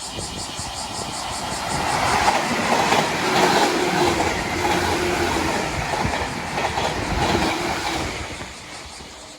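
Train wheels clacking over rail joints as a train passes: the clickety-clack builds over the first couple of seconds, stays loud, then fades near the end before cutting off suddenly.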